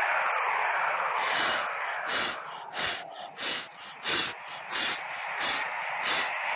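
Air rushing past a spinning foil pinwheel, a hissing rush that from about a second in pulses in even gusts, about one and a half a second.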